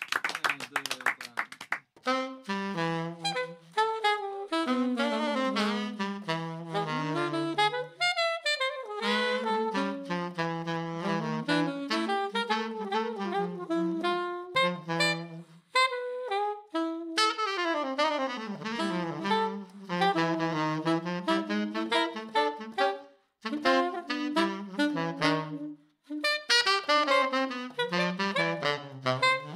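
Hands clapping for about two seconds. Then saxophone playing a jazz tune through a 3D-printed Syos custom mouthpiece: melodic phrases with brief pauses between them.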